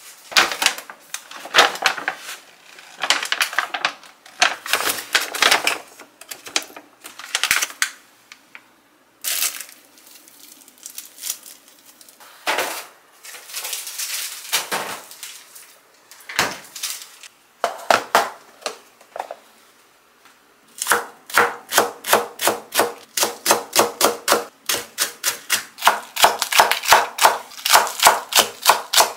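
Kitchen knife chopping a Korean green onion (daepa) on a cutting board: a fast, even run of cuts, about five a second, through the last third. Before that, irregular knocks and rustling from food packages and a fridge drawer being handled.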